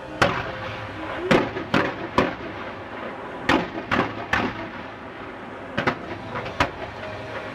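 Display fireworks firing fan-shaped volleys of comets, heard as a series of sharp bangs, about nine in three quick clusters.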